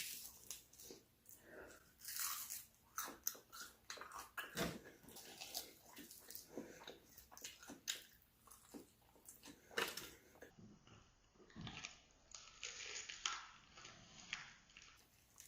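A person chewing and biting food close to the microphone, with irregular crunches throughout.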